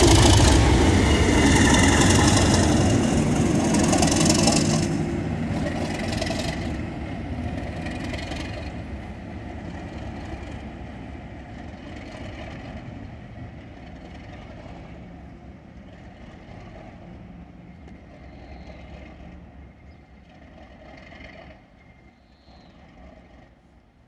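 Class 37 diesel-electric locomotive with its English Electric V12 engine running as it passes close by, loud for the first few seconds, then fading steadily as it pulls away into the distance.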